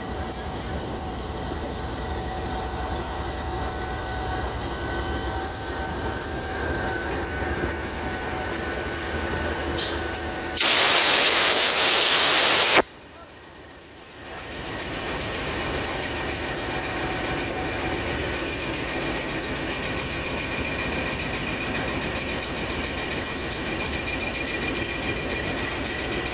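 GEU-20 diesel-electric locomotive standing with its engine running, a steady low hum. About ten seconds in, a loud burst of air hissing from the locomotive lasts about two seconds and cuts off sharply. After a brief dip, the steady engine sound returns.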